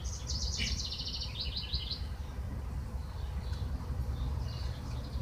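A bird sings a fast trill of repeated high notes, ending about two seconds in, with a few faint chirps after. Underneath is a steady low rumble.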